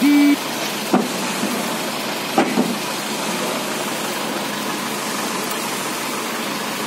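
Steady running noise of the truck-mounted hydraulic crane's engine and hydraulics while it lifts a marine diesel engine. A short beep sounds at the very start, and sharp knocks of the load and rigging come about a second in and again around two and a half seconds in.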